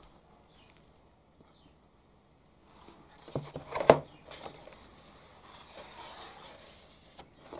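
Paper pages of an art book being handled and turned: a sharp tap a little under four seconds in, then a soft rustle of paper as a page is turned over.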